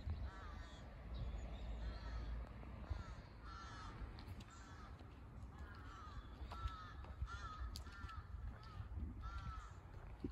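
Crows cawing over and over, short calls coming about one or two a second, faint, over a steady low rumble.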